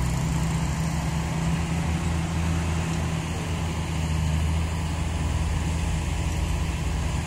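Komatsu D155A crawler bulldozer's diesel engine running with a steady low drone.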